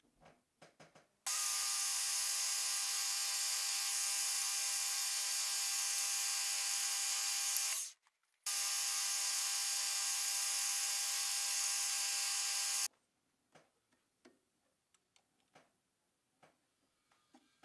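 Metal lathe running steadily with a high motor whine, in two stretches that start and stop abruptly with a short break between them. A few faint clicks before and after it.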